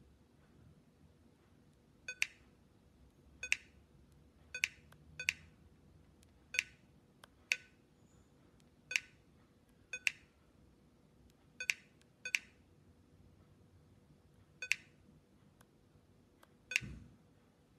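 HP iPAQ rx3715 Pocket PC giving short electronic clicks or beeps, about a dozen at irregular intervals roughly a second apart, the kind of feedback sounds a Pocket PC plays as it is operated. The last click, near the end, comes with a low thump.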